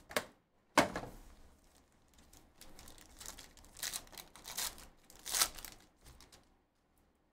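Foil wrapper of a Panini Obsidian Football card pack crinkling and crackling as it is torn open, in irregular bursts, with a sharp crackle about a second in.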